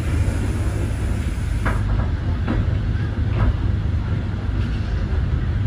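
Steady low rumble of a slow-moving heritage train, heard from inside the cab of a KiHa 58 series railcar, with a few faint clicks from the wheels.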